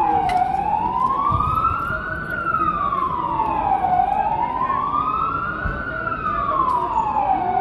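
Emergency vehicle siren wailing, its pitch sliding slowly down and back up in a long rise and fall about every three and a half seconds.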